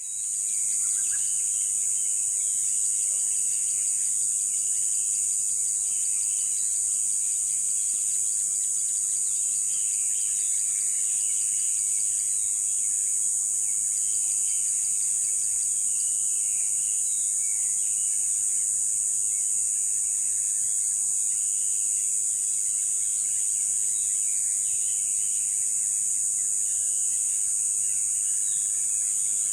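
Steady high-pitched chorus of insects, with birds chirping throughout.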